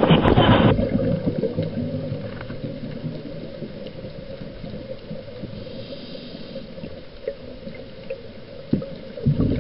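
A brief blast of wind noise on the microphone that cuts off abruptly under a second in, followed by quieter water lapping and gurgling close by.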